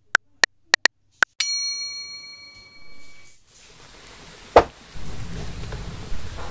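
Title-animation sound effects: five quick ticks, then a single bright bell-like ding that rings and fades over about a second. A sharp knock comes past the middle, followed by a steady hiss.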